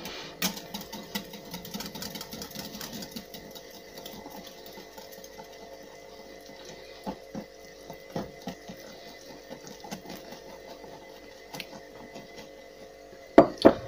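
Flour being scraped off a china plate into a ceramic mixing bowl: soft scraping and many small light clinks of a utensil on china. One sharp knock of crockery comes near the end.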